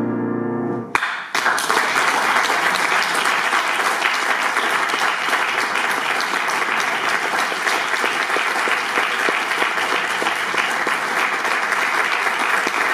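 The last chord of a grand piano rings for about a second and then stops, and an audience immediately breaks into steady applause that carries on to the end.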